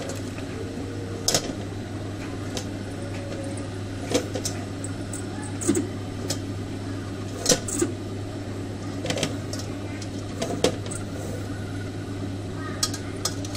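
Wooden spatula scraping and tapping against a stainless-steel mesh strainer and pot as fish and soup solids are pressed through, a dozen or so short sharp knocks spread irregularly over a steady low mechanical hum.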